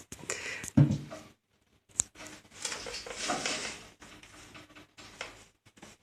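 Handling noises from a freshly greased stair railing joint being worked on: a knock near the start, a sharp click about two seconds in, then scraping and rustling, with scattered small knocks after.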